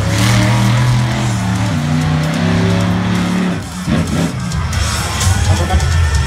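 Music playing over the arena's PA speakers, mixed with the engine of a monster truck on the dirt track. Held, chord-like notes give way about two-thirds of the way through to a rougher low rumble.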